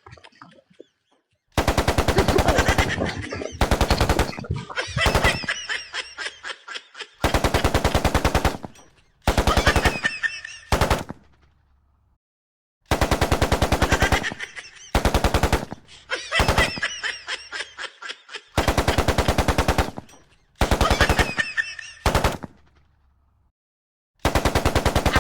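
Machine-gun fire: repeated bursts of rapid automatic shots, each burst fading off, with short pauses and a few longer silences between groups.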